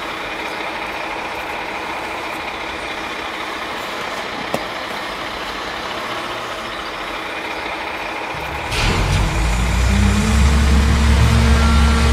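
Rear-loader garbage truck sound: a steady idling hum, then about nine seconds in a much louder, deeper drone with steady low tones as the packer starts its compaction cycle and draws the bags into the hopper.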